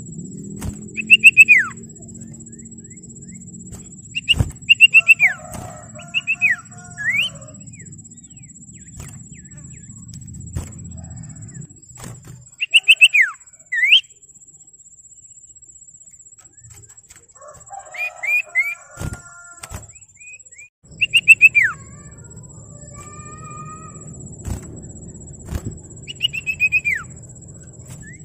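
Common iora (sirtu, cipoh) calling: short bursts of quick, sharply falling whistled notes, repeated every few seconds, with softer chattering notes between them.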